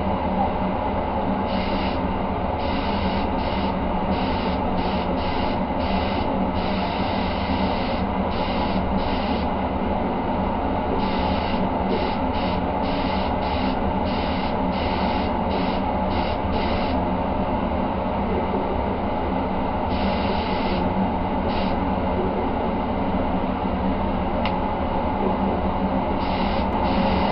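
A mini air spray gun hisses in many short bursts as its trigger is pulled and released, laying on single-stage silver paint. Under it runs a steady machine hum.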